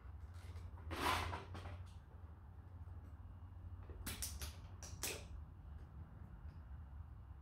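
Parts of a photocopier's paper-feed assembly being handled during teardown: a scrape about a second in, then a few short sharp clicks and rattles around four to five seconds in, over a steady low hum.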